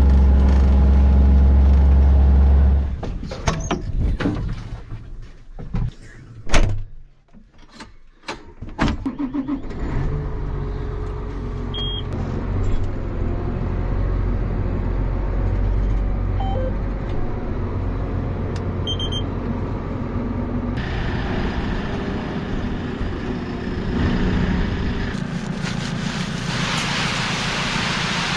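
Tractor engine running, with a steady low hum at first, then a run of knocks and clunks a few seconds in, then the engine running steadily with a few short high beeps.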